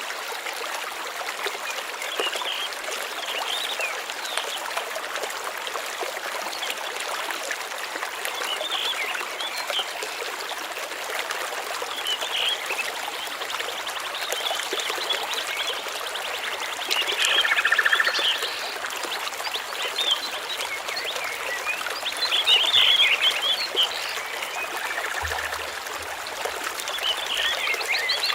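Stream running with a steady rush of water, with small birds chirping over it; the bird calls grow louder about 17 seconds in and again about 22 seconds in.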